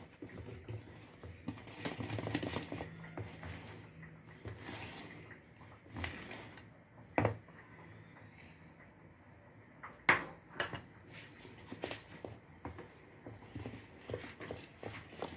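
A kitchen utensil scraping and knocking against a mixing bowl as cake batter is mixed, in irregular small clatters with two sharp clinks about seven and ten seconds in.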